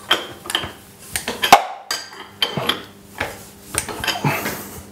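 Hand wrench working the bolts on the overarm of an Abene VHF-3 milling machine as they are loosened: irregular sharp metallic clicks and clinks, several a second, with light ringing from the metal.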